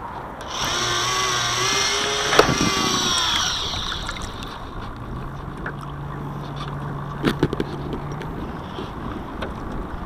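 Small electric servo motor on an RC yacht whining for about three seconds, starting about half a second in, its pitch wavering and dropping as it stops. Water sloshes against the hull throughout, with a few sharp knocks a little past halfway.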